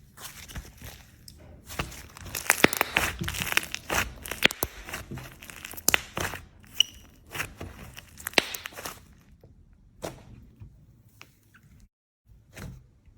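Slime being squished and pressed by hand, giving a run of crunchy crackles and pops that is busiest for the first several seconds and thins to scattered clicks near the end.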